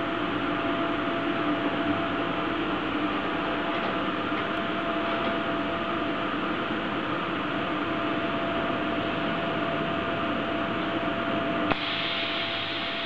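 Steady hum and whir of running high-frequency plastic welding machinery, holding one unchanging tone. A click comes near the end, and after it the hiss turns higher.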